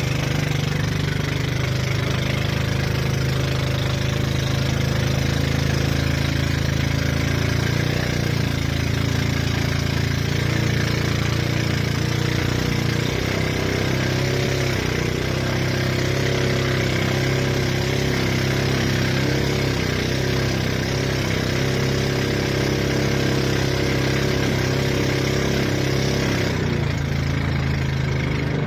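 Small racing boat's 15-horsepower gasoline engine running steadily at speed, with water rushing along the hull; it eases off a little near the end. The owner thought the propeller sounded like it was cavitating on this run.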